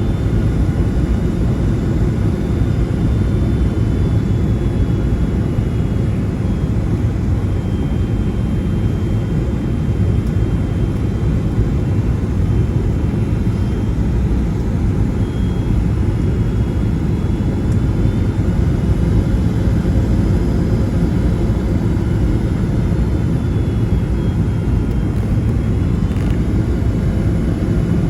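Steady low rumble of a Boeing 757-200 heard inside the passenger cabin at a window seat: engine and airflow noise, even throughout with no distinct thump or surge.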